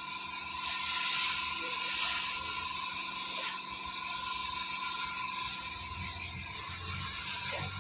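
Gravity-feed compressed-air paint spray gun hissing steadily as it sprays paint onto a boat hull, with a thin steady whistle under the hiss. A low hum comes in near the end.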